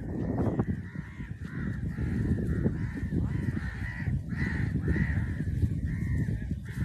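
A bird calling over and over, short arching notes about twice a second, over a steady low rumble.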